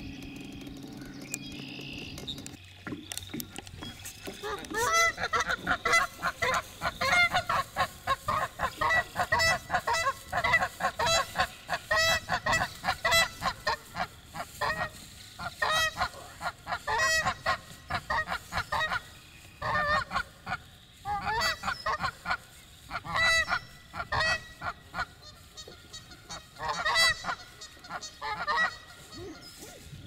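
Canada geese honking: a fast run of loud, rapidly repeated honks from about four seconds in, breaking into shorter bouts of honks with pauses between them toward the end.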